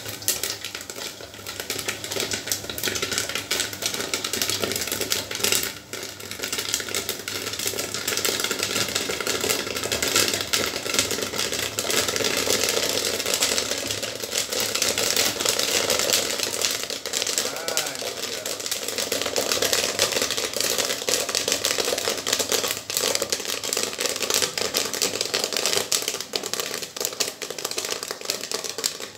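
Corn kernels popping in a gas-heated popcorn machine kettle with a motorised stirrer: a dense, rapid crackle of pops, getting louder about ten seconds in as the kettle fills.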